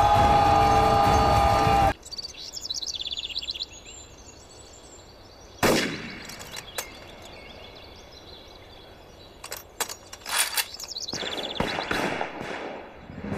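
Battle din with a held charging shout from soldiers, cut off suddenly about two seconds in. Then birds chirping in woodland, with a sharp knock, a few scattered clicks and some rustling.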